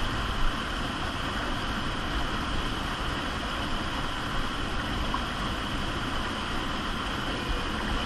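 Steady rush of a fast-flowing underground stream through a narrow cave passage.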